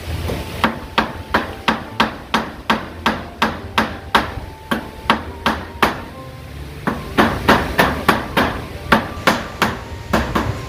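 Hammer driving roofing nails through corrugated zinc sheets: a quick, even run of about three strikes a second, each with a slight metallic ring. The hammering breaks off briefly midway, then resumes.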